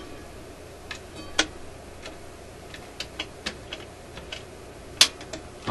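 Irregular clicks and clacks from the RCA Victor 65U's 78 rpm record player mechanism and tone arm being worked by hand, about a dozen in all, the sharpest about a second and a half in and about five seconds in.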